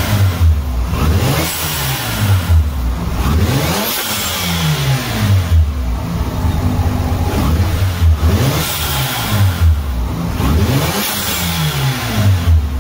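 Mazda RX-7 FD's twin-turbo 13B-REW rotary engine being revved repeatedly, its pitch rising and falling about every two seconds. A freshly fitted Greddy Type-S turbo blow-off valve vents with a hiss as the throttle closes, and it is working.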